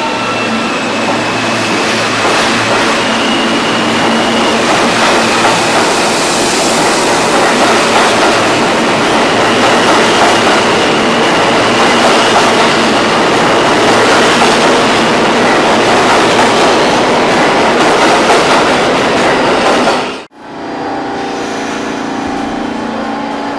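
New York City subway R160 train running along the station track at speed: loud, steady rail noise of wheels on track with a faint steady whine. About twenty seconds in, the sound breaks off abruptly and gives way to the quieter running of an R46 subway train moving at the platform.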